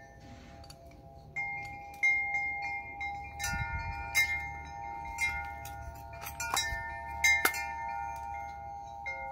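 Chimes ringing: several clear metallic tones are struck again and again at uneven moments and left to ring on, overlapping one another.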